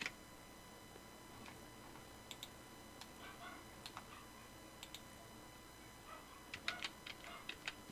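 Faint, scattered clicks of computer keyboard keys and a mouse, with a quick run of several clicks near the end.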